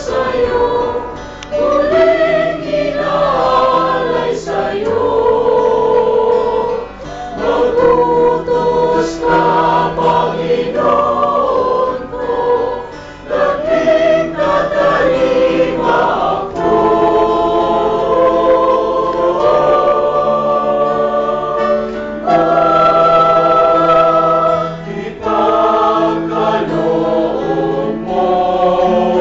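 A small amateur choir of men and women singing together in long, held phrases, with short pauses for breath between them.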